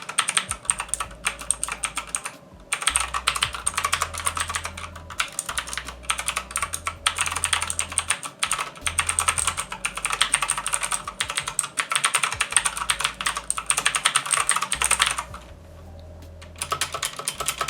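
Fast typing on a budget tenkeyless mechanical keyboard with Otemu blue clicky switches and ABS keycaps: a dense run of sharp clicks. There is a short break about two and a half seconds in and a longer pause near the end before the typing starts again. The typist hears the keyboard as not sounding good and in need of better stabilizers.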